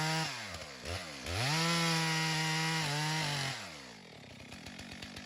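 Two-stroke chainsaw revving, then held at full throttle for about two seconds while it makes a small test undercut into a standing dead Douglas fir, checking whether the wood is still sound. It then drops back to idle.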